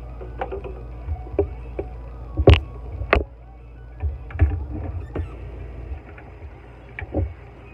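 Dishes being washed by hand in a sink: a sponge scrubbing, with a run of clinks and knocks of glass and metal dishes against each other and the sink, the two loudest about two and a half and three seconds in.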